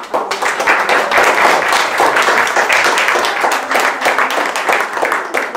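An audience clapping, with dense overlapping hand claps that start sharply and taper off near the end.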